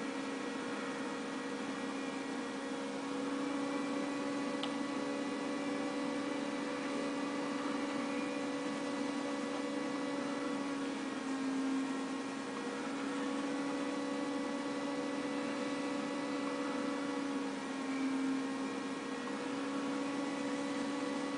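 A steady background hum with fainter higher tones above it, wavering slightly a couple of times.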